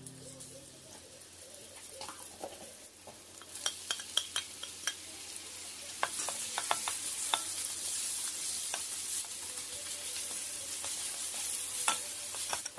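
Minced garlic and sliced green onion sizzling in oil in a nonstick frying pan while a wooden spatula stirs them, with a few sharp knocks against the pan. The sizzle grows louder about halfway through.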